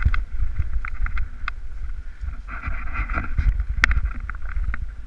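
Wind buffeting the microphone with a heavy rumble, as a mountain bike rides fast down a rough dirt trail, with irregular clicks and rattles as it jolts over bumps.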